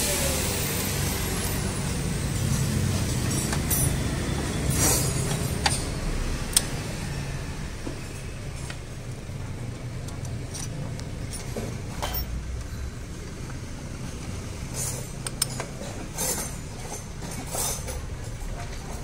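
A power tool's whine falls and stops right at the start. After that come scattered light metallic clicks and knocks of hand tools on scooter engine bolts and parts, over a steady low rumble.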